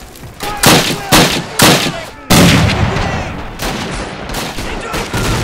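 Battle gunfire: three sharp gunshots about half a second apart, then a heavier report about two seconds in with a long rumbling tail, followed by ongoing distant battle noise.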